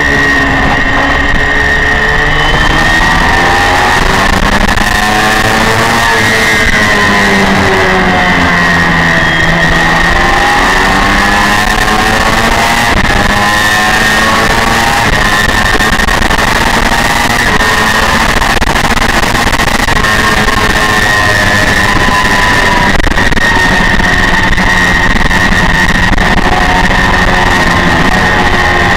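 Honda VFR400 V4 engine at high racing revs, heard from on board, its pitch climbing and dropping again and again as the rider accelerates, shifts and brakes through corners, over steady wind rush.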